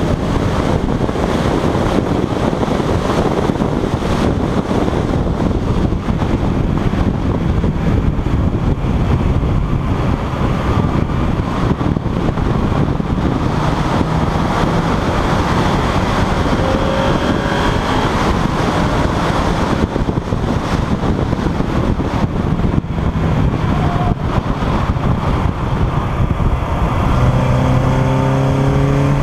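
DC2 Honda Integra race car heard from inside the cabin, lapping at speed: the engine runs hard under heavy road and wind noise. Near the end its note climbs steadily as it accelerates out of a corner.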